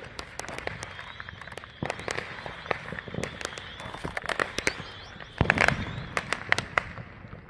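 Home fireworks and firecrackers going off all around: a scattered, irregular run of pops and bangs, with the loudest bang about five and a half seconds in.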